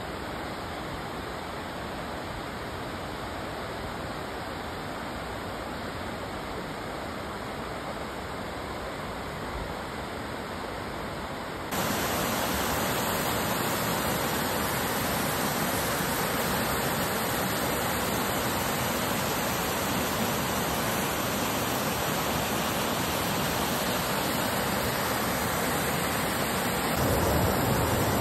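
Rushing water of a mountain stream cascading over rocks and a small waterfall, a steady rush that gets louder about twelve seconds in and again near the end.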